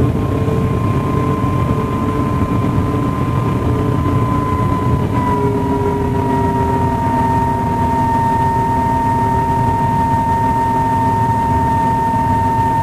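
Cummins-engined MCW Metrobus heard from on board while under way: a steady engine drone with a high whine that drops slightly in pitch about five seconds in, then sinks slowly.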